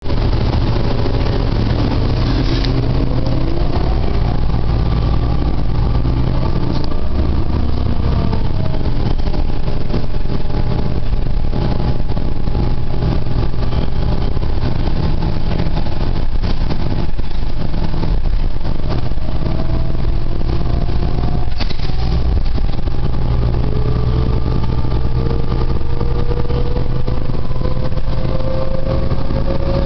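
Cabin sound of a New Flyer DE60LFR hybrid articulated bus under way: the Cummins ISL six-cylinder diesel running with a steady low hum, and the Allison EP50 hybrid drive's whine rising in pitch as the bus accelerates, a couple of seconds in and again over the last several seconds. A few sharp knocks are heard along the way.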